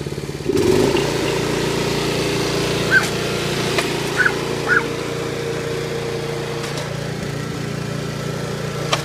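Riding lawn mower's small engine running steadily at high throttle, its level stepping up about half a second in as it is opened up for a wheelie. A few short high chirps sound over it near the middle.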